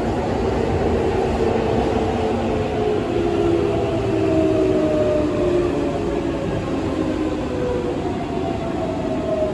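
Keihan 7200 series train's Toyo Denki GTO VVVF inverter and traction motors whining as the train brakes into a station, heard inside the car over the rumble of the wheels on the rails. Several tones slowly fall in pitch as the train slows.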